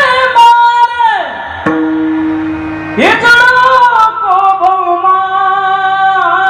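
A male kirtan singer singing a Marathi devotional song in long, ornamented held notes over a steady instrumental tone. One phrase falls away about a second in, and a new phrase begins with an upward glide about three seconds in.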